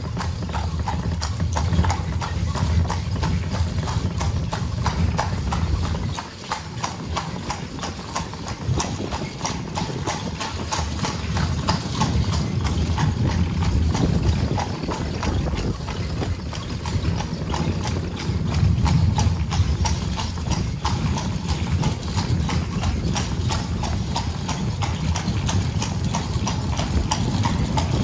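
Carriage horse's hooves clip-clopping steadily on cobblestones as it pulls the carriage at a walk, over a low rumble of the carriage wheels on the cobbles.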